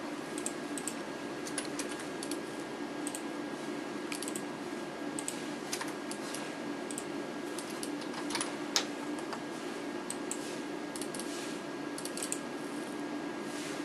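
Irregular clicking of a wireless mouse and computer keyboard in use, with one sharper click about nine seconds in, over a steady low hum.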